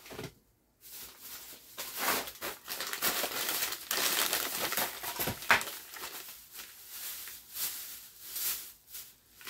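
Plastic shopping bags and snack wrappers crinkling and rustling as items are dug out by hand, with one sharp click about five and a half seconds in.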